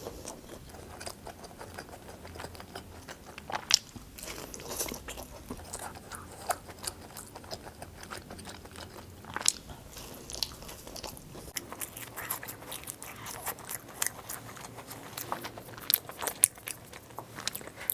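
A person biting and chewing pizza close to the microphone: irregular soft crunches and wet mouth clicks, with a couple of louder bites about four and nine seconds in.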